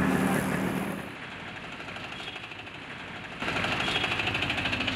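A motorbike passes at the start. About three and a half seconds in, a small engine suddenly comes in, running with a rapid, even pulsing.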